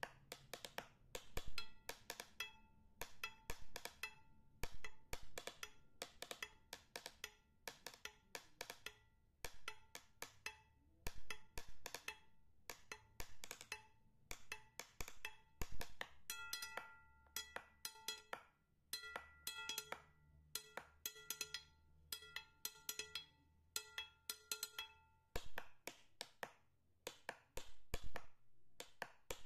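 Background music made of sparse wood-block-like clicks in an uneven rhythm, with short repeated pitched notes joining about halfway through.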